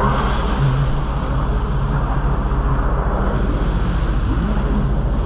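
Sea-Doo jet ski engine running under way, its hum wavering slightly in pitch over a steady rushing noise.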